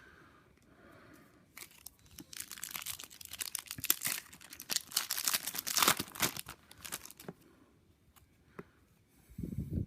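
A trading card pack's wrapper being torn open and crinkled: a few seconds of tearing and crackling rustle, then quieter handling of the cards.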